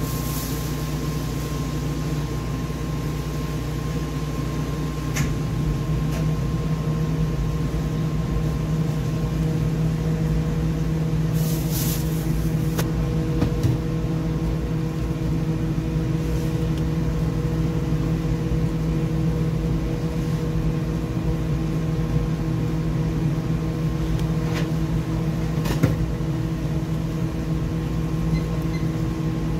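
Steady machine hum with several fixed tones over a low rumble, like kitchen equipment running, with a few faint clicks and a short hiss about twelve seconds in.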